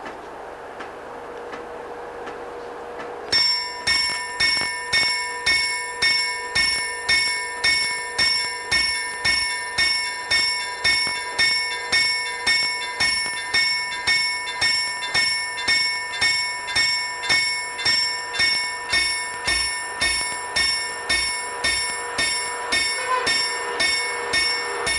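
Railway level crossing warning bell starts ringing about three seconds in and keeps striking at an even beat, about three strokes every two seconds, signalling that a train is approaching.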